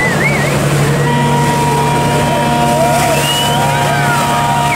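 Fishing boat's engine running steadily as it passes close at speed, with water rushing from its bow wave and wake. From about a second in, a steady high tone and wavering voices sound over it.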